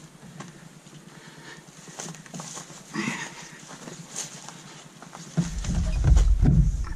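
Footsteps and knocks of a person carrying an overturned canoe on a rocky portage trail, heard from inside the hull. About five seconds in a loud low rumble starts suddenly as the canoe is handled at the gunwales.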